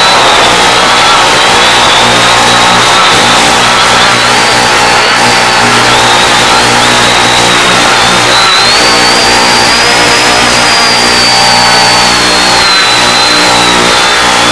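Electric motors of an X550AIOP quadcopter whining steadily under loud hiss, heard over the analog FPV video downlink's audio. The high whine drifts up and down in pitch as the throttle changes.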